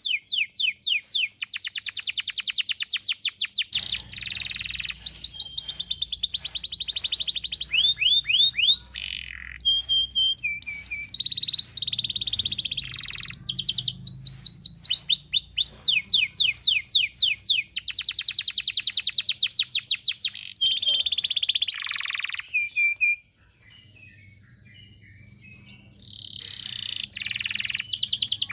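Domestic canary singing a long, fast song of rapidly repeated whistled notes and trills (rolls), with a short break about three-quarters of the way through before it resumes.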